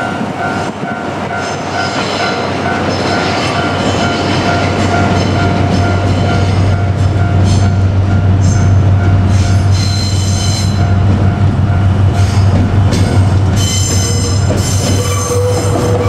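A JR Kyushu DF200-7000 diesel-electric locomotive hauling the Seven Stars in Kyushu train passes slowly, its engine drone growing louder as it comes by, with wheels squealing on the rails from about halfway through. A level crossing bell rings in the first few seconds.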